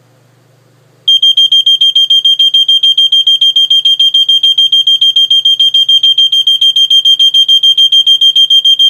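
A 1981 Gateway Scientific Model 2801 photoelectric smoke detector sounds its alarm on a test-button press. Its piezo horn gives a loud, high-pitched tone pulsing rapidly, about seven beeps a second, starting about a second in.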